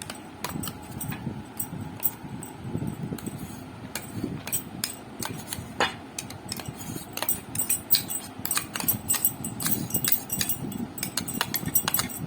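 Irregular clicks and knocks of a spoon and metal kitchen utensils being handled, with a low rumble of handling noise.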